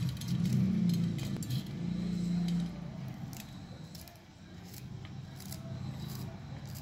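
Small kitchen knife slicing a green chilli over a stainless steel plate, giving light, irregular metallic clicks. A low rumble runs under it for the first few seconds and then fades.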